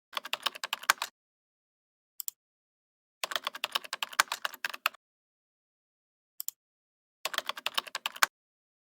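Computer keyboard typing: rapid clicks in three bursts of about one to two seconds each, with a single short click before the second and third bursts and dead silence between.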